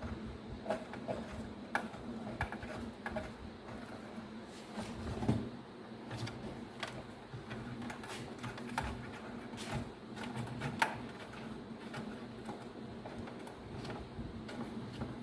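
Irregular light clicks and knocks of juicer-blender parts being handled while the drive gear is worked out of its housing, over a steady low hum.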